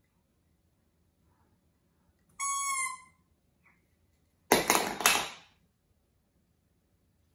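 A baby's plastic toy trumpet blown once, a short steady high-pitched toot about two and a half seconds in. About two seconds later the plastic toy clatters onto a wooden floor, the loudest sound.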